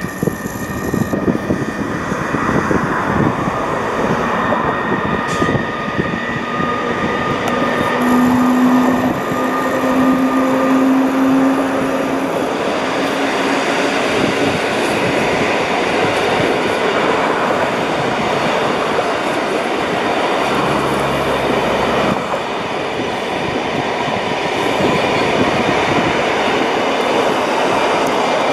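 PKP Intercity passenger train hauled by an EU160 electric locomotive passing through the station: a steady noise of the locomotive and coaches running over the tracks, with a faint hum for a few seconds about a third of the way in.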